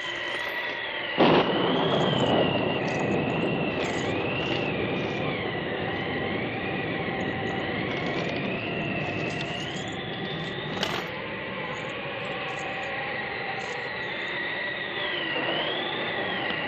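Recorded haunted-house sound effects: high, wavering whistling tones that glide slowly up and down over a steady rushing noise, with a sudden loud crash about a second in and a sharp click near the eleven-second mark.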